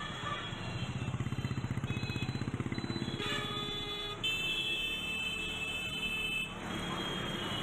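Motorcycle engine running while riding through city traffic, a fast low pulsing. Vehicle horns honk from about three seconds in until a little past six seconds.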